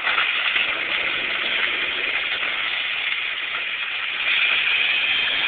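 Vita-Mix blender motor running steadily, chopping up a mashed mix of Swiss rolls and Pop-Tarts, a little louder about four seconds in.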